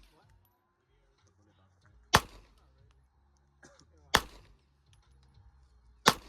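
Three handgun shots about two seconds apart, each a sharp crack with a short echo.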